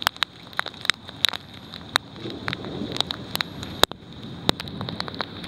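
Hailstones striking nearby hard surfaces in a hailstorm: scattered sharp ticks and knocks, a few a second at irregular intervals, over a steady hiss of heavy rain.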